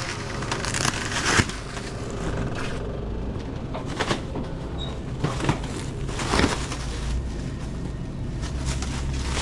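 Plastic stretch wrap rustling and crinkling as it is pulled off a pallet of bottled drinks, with scattered sharp knocks from handling the cases, over a steady low hum.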